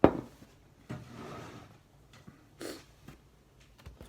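A man hiccups sharply once, then breathes out heavily and gives a short sniff, struggling with the heat of a raw Carolina Reaper pepper.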